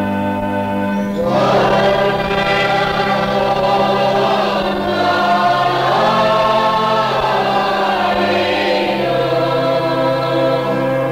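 Background music: a choir singing a slow sacred hymn over sustained low chords. The voices come in about a second in.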